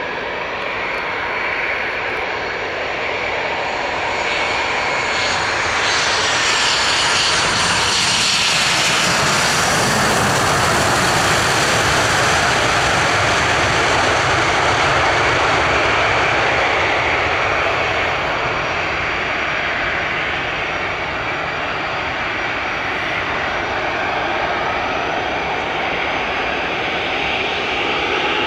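Airliner's engines on a wet runway: the noise builds over several seconds with a falling whine as the aircraft passes, then a loud, steady rush of engine noise and spray that eases slightly in the second half.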